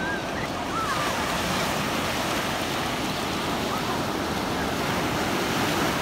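Ocean surf breaking and washing up the beach: a steady hiss of waves that swells from about a second and a half in.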